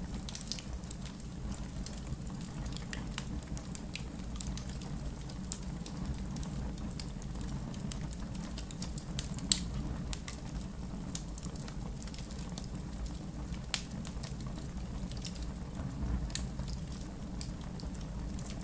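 Wood fire in a fireplace crackling: a low steady rumble of flames with scattered small pops, and one sharp, louder pop about halfway through.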